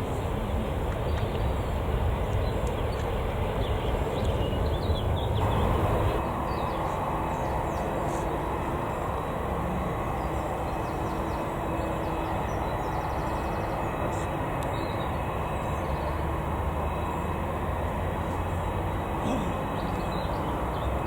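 Jet airliner engines running with a steady rumble, whose sound changes abruptly about five and a half seconds in and then continues steadily.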